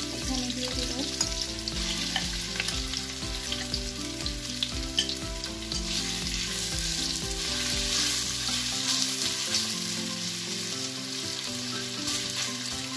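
Chicken breast pieces sizzling as they fry in hot oil with ginger, garlic and green chilli in a nonstick frying pan, with the scrapes and clicks of a slotted spatula stirring them.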